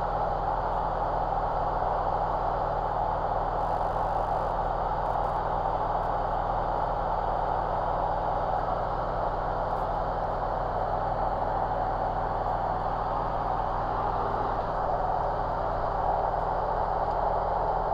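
Steady drone of a single-engine piston light aircraft's engine and propeller in level flight, heard in the cockpit.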